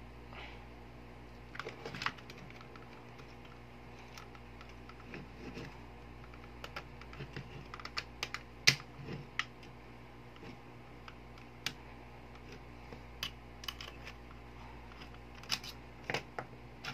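Scattered small clicks and clacks of the plastic and metal parts of a spring-powered airsoft M1911 pistol being handled and fitted together, with one sharper click a little under nine seconds in.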